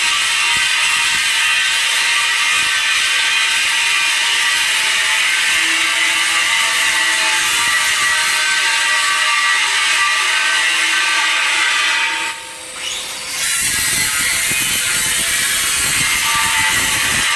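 Electric welding arc crackling and hissing steadily on a pipe joint. It breaks off about twelve seconds in for about a second, then strikes up again.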